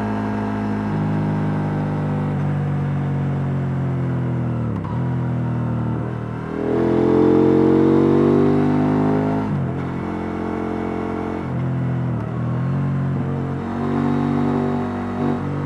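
KTM 890 Duke R's stock-exhaust parallel-twin engine heard on board while riding. Its pitch rises and falls with throttle and gear changes, with short dips in pitch and one hard, louder pull about seven seconds in that cuts off sharply after a couple of seconds.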